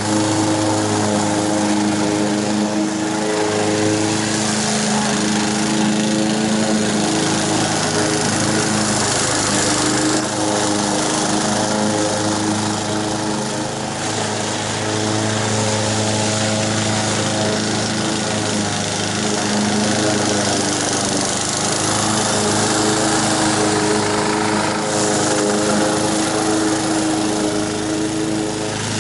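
Honda HR194 push mower's small petrol engine running steadily under load while the blade cuts grass, with slight shifts in pitch and level as it is pushed along. It keeps running off choke now that its carburetor fault has been repaired.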